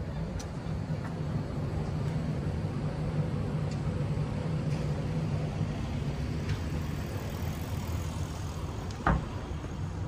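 A motor vehicle engine running with a steady low rumble. A single thump comes about nine seconds in.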